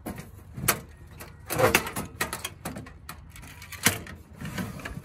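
Steel computer case and motherboard clacking and scraping as the board is worked loose and pulled out of the chassis: a run of sharp knocks and rattles, the loudest about a second in and near four seconds.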